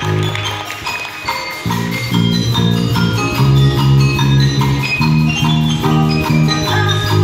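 Small wind band with clarinets and trumpet playing a lively piece: quick repeated notes over held low notes, the sound growing fuller about a second and a half in.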